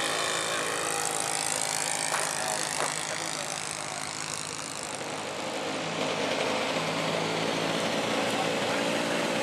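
Radio-controlled model float plane's motor and propeller droning as it flies past, the higher tones bending in pitch as it goes by. It fades a little about halfway through and comes back up near the end.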